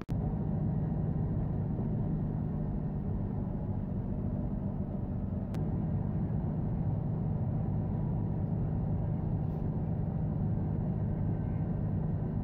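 Steady low engine drone and road rumble heard from inside a moving bus as it cruises along a highway.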